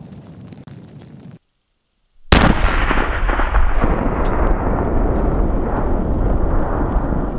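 A charge of about 4 pounds of plastic explosive with a military frag grenade detonating inside a water-filled Waterwall blast bin: one sudden loud blast about two seconds in, followed by a long, loud rumble. Before it, the fading rumble of an earlier blast cuts off abruptly.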